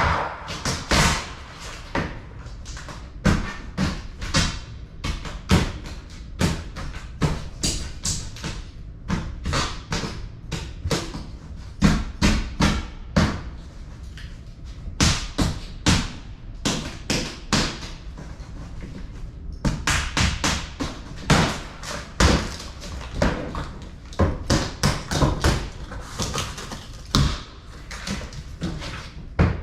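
A large e-bike shipping box being opened and its packing handled: irregular knocks, taps and thumps, several a second at times.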